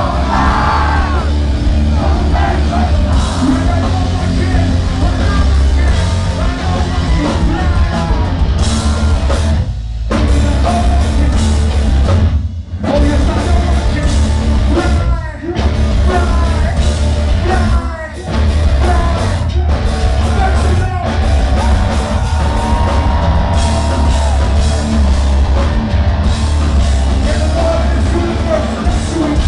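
Live rock band playing loud through a club PA, with heavy bass, drums and a shouted, sung lead vocal; the band cuts out for an instant several times in the middle of the stretch.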